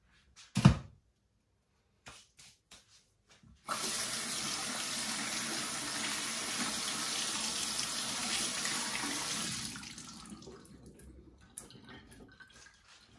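A bathroom tap running into a sink: water starts suddenly about four seconds in, runs evenly for about six seconds, then tapers off. A single sharp knock comes shortly before, less than a second in.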